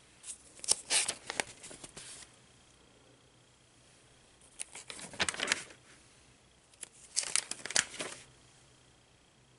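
Paper pages of a composition-book art journal being turned three times, crinkling and rustling as the stiff pages with glued-on magazine cutouts flip over.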